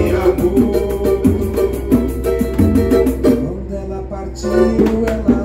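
Live samba with a cavaquinho strummed, a hand drum thumping the beat, and a pandeiro's jingles, with a man singing over it. The pandeiro's jingles drop out for about a second past the middle, then come back.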